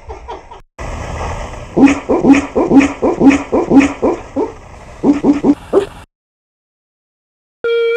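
A sleeping Weimaraner barking in her sleep: a run of short woofs about two a second, each dropping slightly in pitch, then a quicker group of four. Barking like this in sleep is the sign of a dog dreaming.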